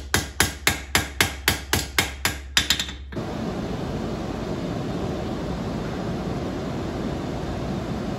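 Hand hammer striking hot steel tong-blank reins on an anvil, about four ringing blows a second. The hammering stops suddenly about three seconds in, giving way to the steady rushing of the coal forge fire.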